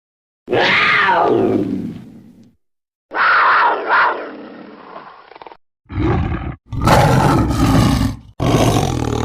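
Big-cat snarls and roars made as sound effects for a leopard. There are five separate calls with short silences between them, and the first one slides down in pitch as it fades.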